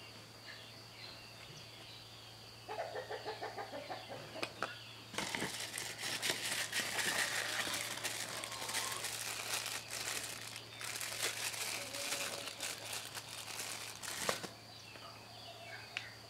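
Crinkling and rustling of filter packaging being handled: a softer rapid rustle about three seconds in, then about nine seconds of dense crackling with small clicks that stops suddenly near the end.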